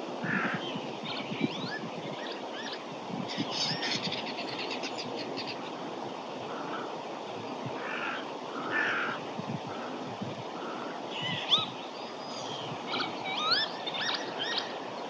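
Birds calling again and again, squeaky whistles that sweep up and down in pitch and sound like R2-D2, several calling together near the end. Wind rumbles on the microphone underneath.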